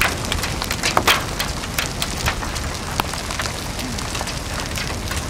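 Rain pelting the chase vehicle's windshield and body, heard from inside as a dense, irregular patter of sharp ticks over a steady low rumble.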